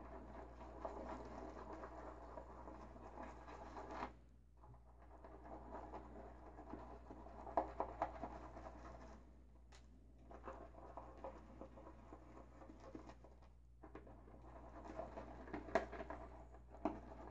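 Omega Pro 48 boar-bristle shaving brush whipping shaving-soap lather in a small container: a faint, soft scratching swish, breaking off briefly about four seconds in and again after about thirteen seconds, with a few sharper ticks.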